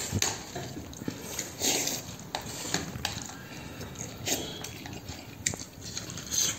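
A person eating instant noodles with a fork from a plastic container: slurping and chewing in irregular bursts, with a few sharp clicks of the fork on the plastic.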